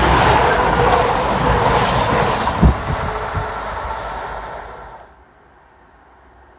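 Diesel Voyager passenger train passing close at speed: a loud rushing noise with a steady whine and a sharp thump about two and a half seconds in. The sound cuts off abruptly about five seconds in, leaving only quiet outdoor background.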